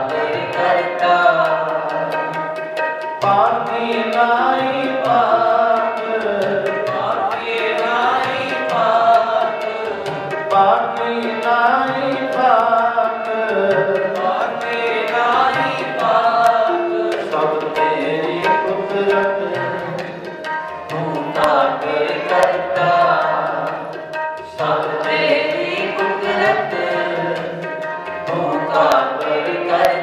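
Sikh kirtan: male voices singing a Gurbani hymn over two harmoniums, with tabla drumming.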